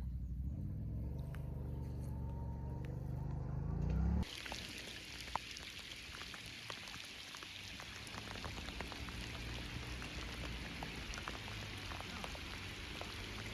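A motor running and revving up, climbing in pitch for about four seconds, then cut off abruptly. It gives way to a steady hiss with scattered light ticks.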